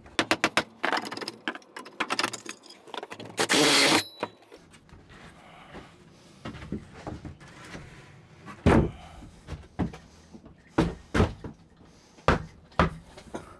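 Sheet plywood being handled and set down in a tub alcove: wooden knocks and clatter, a short loud scrape about three and a half seconds in, then a run of sharp single thuds in the second half.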